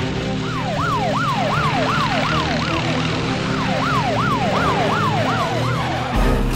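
Police siren sounding in quick falling sweeps, about three a second, with a short break midway, over background music. A low thud comes near the end.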